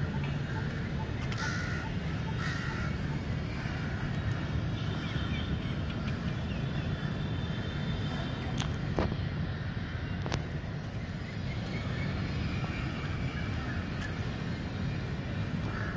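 Steady low rumble of city traffic, with a few short bird calls in the first seconds and two sharp clicks about nine and ten seconds in.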